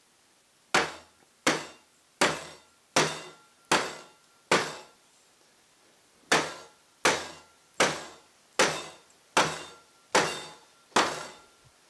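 Dog place cot's PVC pipe frame knocked down on its feet onto a rubber surface, over and over, to drive the fabric down tight on the frame. Thirteen sharp knocks, about three-quarters of a second apart, in a run of six and a run of seven with a short pause between.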